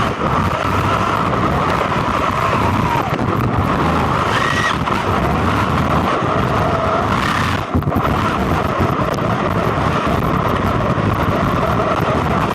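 Quanum Vandal electric RC buggy driving, its motor and drivetrain giving a steady whine over a rushing noise of tyres on the ground, with a brief drop about eight seconds in.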